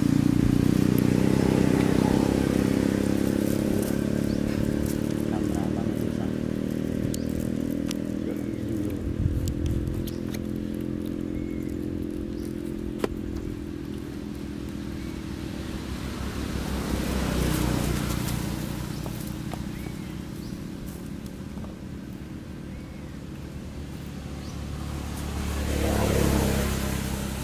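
Motor vehicle engines running and passing: a low engine hum, loudest at the start, slowly drops in pitch and fades. Two more vehicles swell up and pass, about 17 and 26 seconds in.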